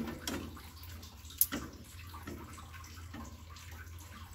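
Thin chocolate pudding mixture sloshing and swirling in a stainless steel pot as it is stirred with a silicone spatula, with a sharp tap of the spatula against the pot about a second and a half in.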